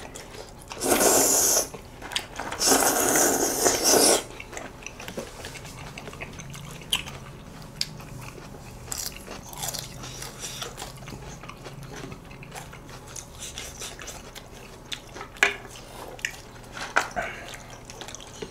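Noodles being slurped loudly twice in the first four seconds, each slurp lasting about a second, then quieter chewing with scattered small clicks.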